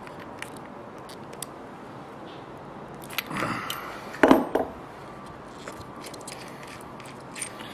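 Combination wrenches clicking and scraping against the brass lock nuts and studs of a screw compressor's electrical terminal plate as a terminal nut is worked loose. Scattered small metal ticks, with a louder burst of noise a little past the middle.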